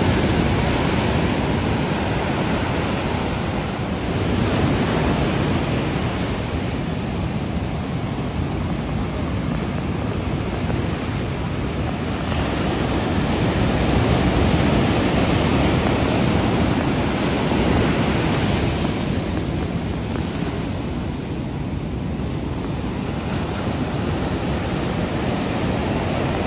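Ocean surf breaking and washing up the shore, a steady rushing noise that swells and eases as each wave comes in.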